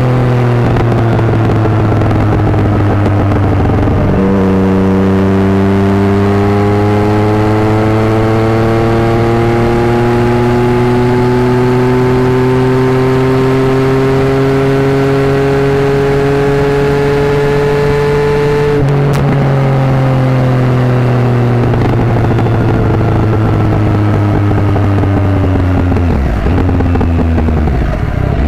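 Triumph Sprint GT's 1050 cc three-cylinder engine running through a Delkevic aftermarket exhaust while riding. The throttle opens about four seconds in and the engine note climbs slowly and steadily. About two-thirds of the way through it shuts off and the pitch falls as the bike slows, with another step down in pitch near the end.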